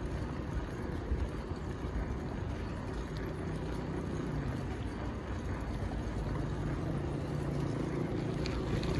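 Riding noise: a low rumble of wind and road on the microphone, with a steady engine hum that comes and goes from about three seconds in.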